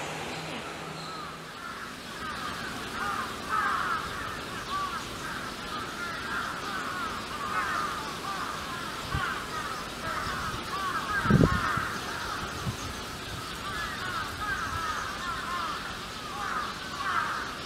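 Many birds calling at once: a dense chatter of short, overlapping chirping calls, with a single dull thud about eleven seconds in.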